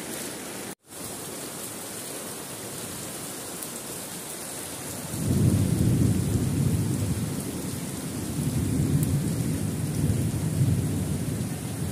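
Steady hiss of rain and floodwater. It cuts out for an instant about a second in. About five seconds in, a louder low rumble joins and carries on.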